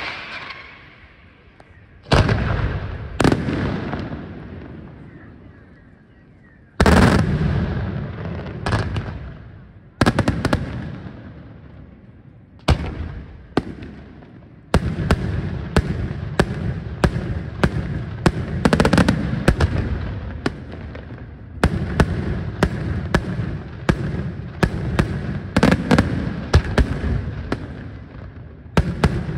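Daytime fireworks display: aerial smoke shells bursting overhead with sharp bangs and rolling echoes. A few single bangs come seconds apart, then about halfway in a rapid barrage starts, several bangs a second.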